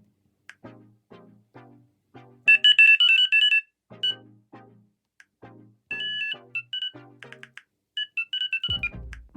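Mobile phone ringtone: a melody of short plucked-sounding notes, about two a second, with bursts of high electronic beeping over it. Near the end a deeper, bass-heavy sound comes in.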